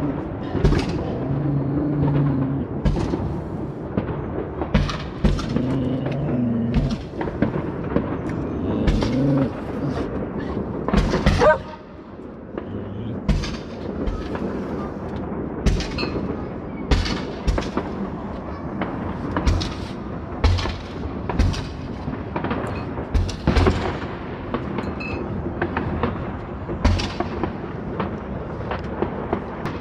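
New Year's fireworks going off over a city: dozens of irregular bangs and pops, with a loud burst and a short rising whistle about eleven seconds in.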